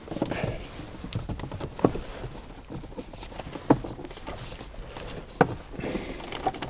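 Plastic instrument-cluster cowl on a Mercedes C-Class W204 dashboard being pulled at by gloved hands: rustling and scraping of plastic, with three sharp clicks about two seconds apart as the trim is worked loose from its clips.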